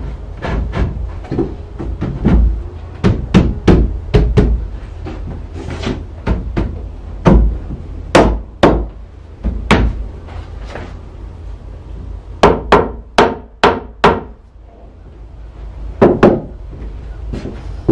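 Wooden 2x6 window sub-jambs being knocked into place in a log-wall opening: a long series of sharp wooden knocks, some single and some in quick clusters, with a pause about three-quarters of the way through.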